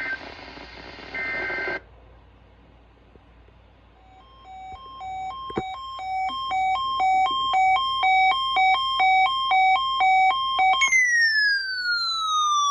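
Emergency Alert System broadcast tones: the tail of a buzzing digital data burst, then a pause. A two-tone alarm then fades in, alternating between a lower and a higher pitch about twice a second. Near the end it gives way to a long tone that falls steadily in pitch like a siren.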